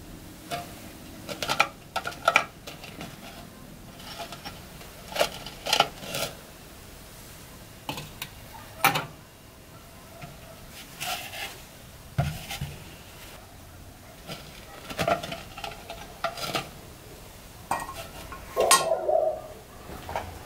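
Small glazed terracotta pieces clinking and knocking against a microwave kiln and a board as they are handled with an oven mitt: irregular short knocks every second or two, with a busier cluster near the end.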